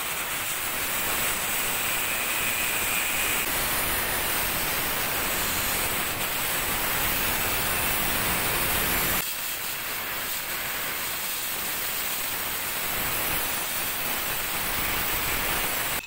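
Electric angle grinder running and cutting into PVC pipe, a steady harsh hiss. It drops a little about nine seconds in and cuts off abruptly at the end.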